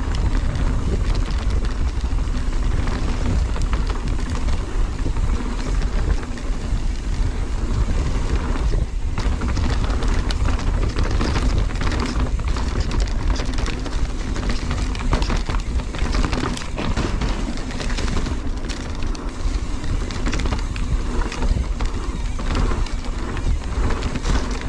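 Mountain bike descending a dirt trail: wind rumble on the camera microphone over tyres rolling on dirt and fallen leaves, with the bike rattling and clattering over bumps.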